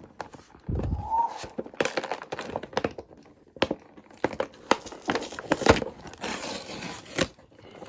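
Toy packaging being torn and crinkled open by hand: rustling and crackling with many sharp clicks, denser near the end.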